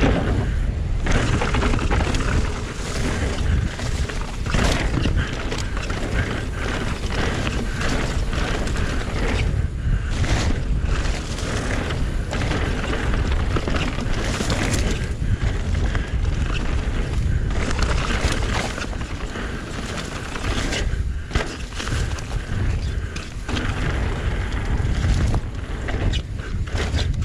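Wind buffeting the microphone on a mountain bike riding fast down a dirt forest trail, a steady low rumble, with tyre noise and frequent knocks and rattles from the bike over bumps.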